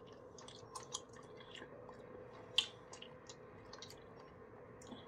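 Close-up chewing of a mouthful of grilled peri-peri chicken: soft, wet mouth clicks and smacks at irregular intervals, the sharpest about two and a half seconds in.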